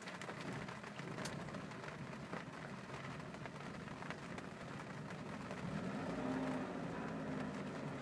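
Saab 900 Turbo's turbocharged four-cylinder engine idling roughly. About six seconds in the engine speed briefly rises and falls back.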